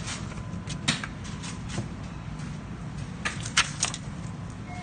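Banknotes being handled at a counter: light paper rustles and a quick cluster of sharp clicks about three and a half seconds in, over a steady low room hum.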